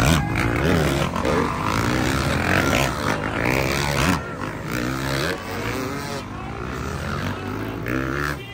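Motocross dirt bike engines revving hard, their pitch repeatedly rising and falling.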